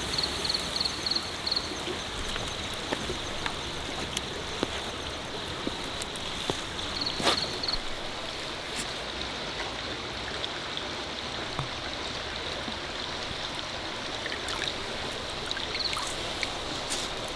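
Steady rush of a forest stream, with scattered small clicks and three short runs of rapid high chirps.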